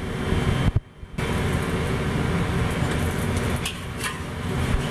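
Zucchini pancake pan-frying in a wok over a gas flame: a steady sizzle. Near the end, a few clicks of a metal spatula against the wok as it is slid under the pancake.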